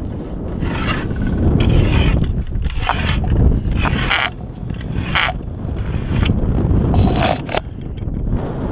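Wind rumbling on the microphone near the top of a radio tower, with about a dozen short, irregular scraping and rubbing sounds from the climber's rope and gear.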